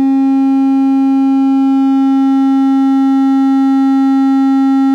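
Small subwoofer driver in a 3D-printed enclosure playing a steady, loud 270 Hz sine test tone, driven toward 15 watts. A long row of higher overtones sits above the tone.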